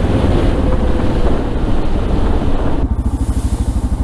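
Single-cylinder motorcycle engine running on the road with wind rush. About three seconds in it changes abruptly to a slower, evenly pulsing single-cylinder thump at low speed.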